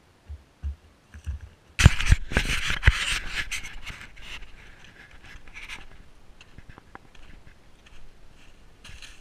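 Handling noise from a camera being lifted off the ground: a few soft knocks, then about two seconds in a loud burst of scraping and knocking against the case. Irregular crunching of footsteps through dry leaves and twigs follows, fainter and fading.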